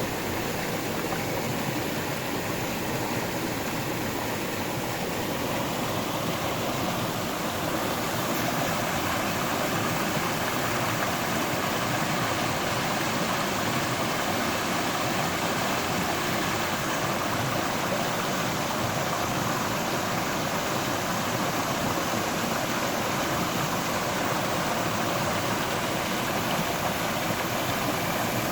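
River water flowing steadily over rocks: a continuous rushing that rises a little about five seconds in and then holds steady.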